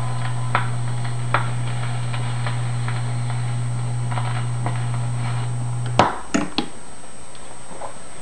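Steel-free jukebox cartridge needle riding the run-out groove of a 78 rpm record on a 1940 Silvertone 5849 wireless record player: a steady low hum with a soft click about every 0.8 s, once per turn of the record. About six seconds in, a loud click comes as the tonearm is lifted, the hum drops, and a couple of knocks follow as the arm is set on its rest.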